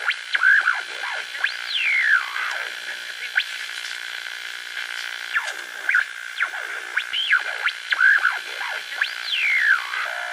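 Eerie electronic music of sliding, wavering tones: theremin-like swoops rising and falling every second or two over a steady whining drone.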